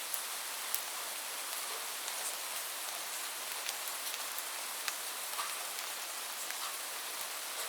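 Heavy rain falling steadily, an even hiss with scattered sharp drop impacts.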